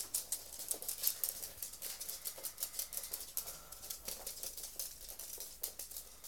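Small dogs' claws clicking on a hard laminate floor: light, irregular ticks, several a second.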